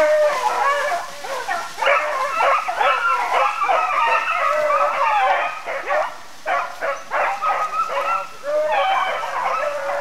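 A pack of beagles baying and yipping together, several voices overlapping in a continuous chorus that starts abruptly. This is the sound of hounds running a rabbit.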